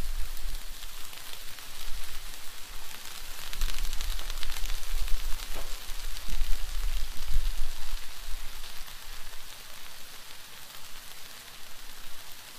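Steaks, sweet peppers and onions sizzling on a hot Blackstone flat-top griddle, a steady crackling hiss. Bouts of low rumble come and go underneath.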